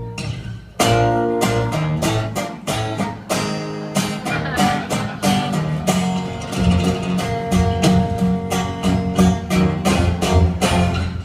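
Live acoustic band playing: acoustic guitars strummed in a steady rhythm over plucked upright double bass. The music drops back briefly just under a second in, then returns with strong strums.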